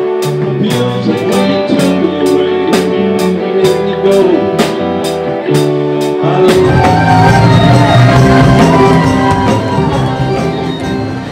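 Rock band playing: a steady drum beat of about three strokes a second under electric guitar. About six and a half seconds in, the music changes to a fuller, denser sound.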